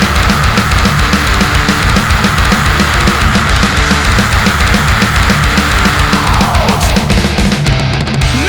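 Loud heavy rock background music with a steady, driving drum beat.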